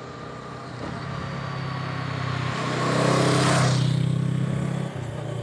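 Honda CL500's parallel-twin engine under way, pulling harder and louder from about a second in, with wind noise rising with it, then easing off about five seconds in.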